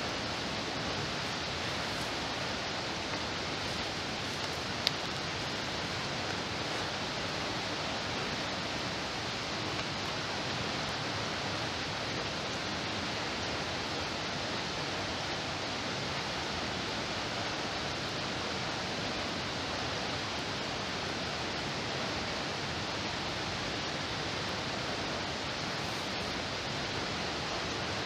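Steady, even rush of water from the dam's discharge, with one faint click about five seconds in.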